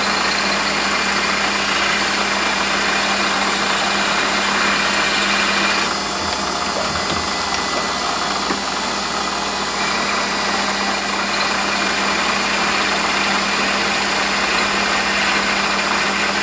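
Warco metal lathe running while a twist drill is slowly fed into the workpiece: a steady motor hum under a hissing cutting noise, the higher part easing for a few seconds around the middle.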